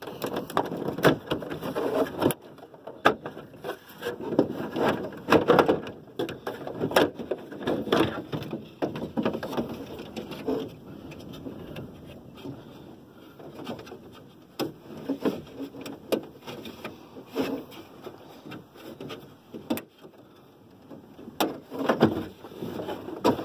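Plastic dash bezel of a Ram pickup being unclipped and handled: a run of clicks, snaps and knocks of hard plastic, quieter in the middle and busier again near the end.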